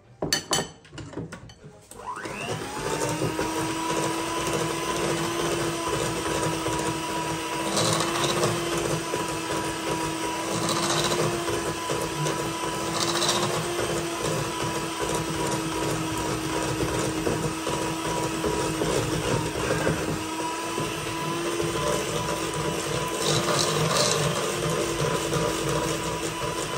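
Electric mixer beating flour into cake batter: the motor spins up about two seconds in and then runs steadily with an even hum, with a few light knocks of the beaters against the bowl.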